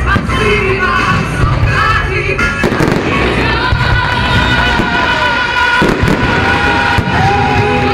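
Fireworks shells bursting over and over, a dense run of bangs and crackles, with music playing at the same time.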